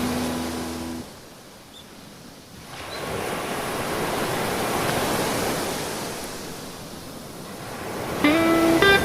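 Ocean surf: a wave breaks and washes in, swelling over a couple of seconds and then fading away. A held guitar note ends about a second in, and guitar music comes back near the end.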